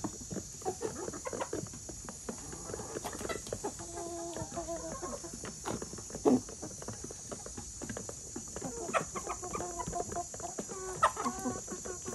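A flock of hens and roosters clucking and calling while feeding, with longer drawn-out calls about four seconds in and again past eight seconds. One sudden loud sound just after six seconds.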